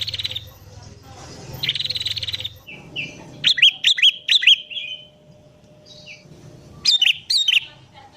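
Song of a sooty-headed bulbul (kutilang) with prinia-like (prenjak) notes worked in: two buzzy, rapid trills, then bursts of loud, short whistled notes that dip and rise.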